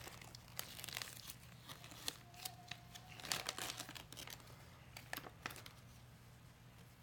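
Crinkly plastic wrappers from an LOL Surprise Confetti Pop being handled and rustled, with scattered light clicks and taps. The rustling thins out about five and a half seconds in.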